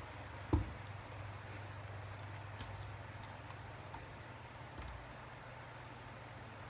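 A dull thump about half a second in, then scattered faint ticks and a softer thump near the end, over a steady low hum.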